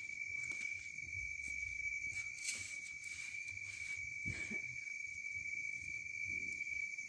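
Insects trilling in one continuous high, steady tone, with a few faint clicks over it.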